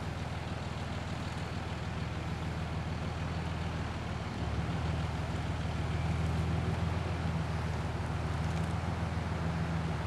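A truck engine running steadily while it maneuvers a trailer carrying a storage shed, getting a little louder about four and a half seconds in.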